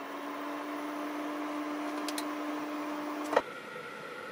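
Portable induction cooktop heating a pan of broth toward the boil, running with a steady hum and a low held tone. About three seconds in it cuts off with a click and a different, higher-pitched steady hum takes over.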